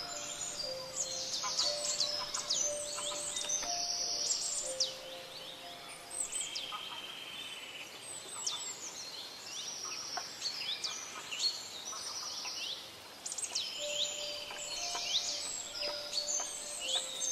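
Birds chirping and calling, with many quick, high downward-sweeping notes overlapping one another. Underneath runs a slow line of low held notes that stops for several seconds mid-way and returns near the end.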